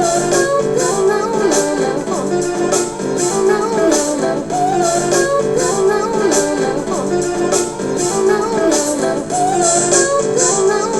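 Music with a steady percussion beat, sustained chords and a wavering melody line.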